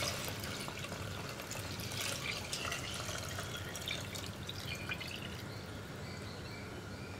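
Thin second coconut milk pouring from a glass bowl into a wide metal uruli of hot broken-wheat payasam, a soft steady liquid pour with faint drips.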